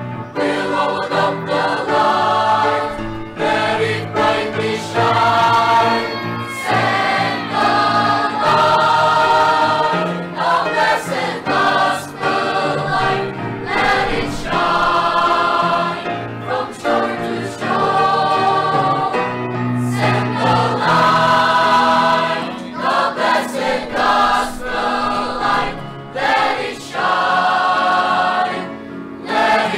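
Children's choir, with a few adult men's voices, singing a gospel hymn in phrases of a few seconds with short breaths between them.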